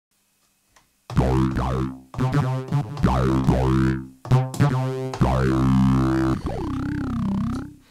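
Synthesizer chords played live from the pads of an Ableton Push controller: about five short chords roughly a second apart, each with a sweeping pitch, then a longer wobbling sweep near the end.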